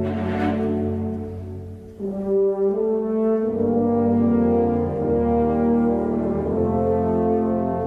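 Music played by brass instruments, French horns among them, in slow, sustained chords. It dips briefly about two seconds in and then swells again.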